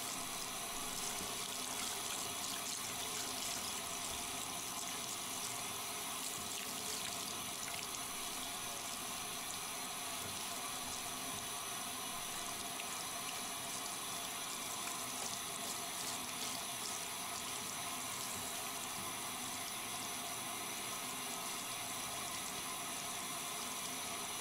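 Handheld bathtub shower running steadily, water spraying over a dog's wet coat and splashing into the tub.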